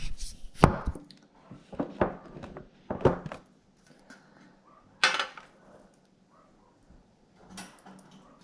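Knocks and clatter of containers being handled while bird seed is got out, about six separate knocks spread through, with a brief rustle about five seconds in.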